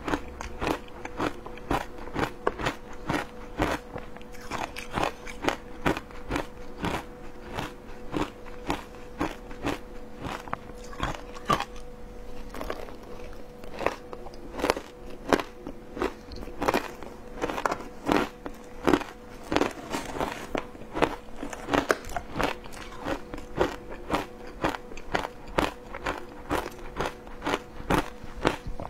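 Person biting and chewing mouthfuls of frozen matcha shaved ice, close on a clip-on microphone: a dense run of crisp crunches, several a second, with a faint steady hum beneath.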